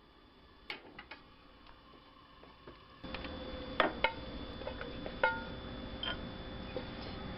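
Chopsticks clicking and tapping against a frying pan and a bowl as cooked bulgogi beef is pushed out of the pan. There are a few faint taps early on, then sharper clicks, some of which ring briefly, and the background gets louder about three seconds in.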